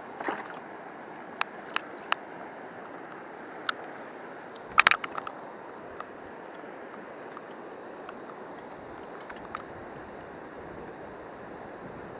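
River water running steadily, with a handful of sharp clicks and knocks over it; the loudest is a short cluster about five seconds in.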